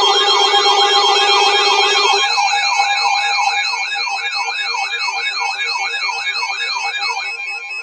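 Electronic siren yelping, its pitch sweeping rapidly up and down two or three times a second over steady tones. The steady tones turn into pulsing tones about two seconds in, and the siren stops near the end.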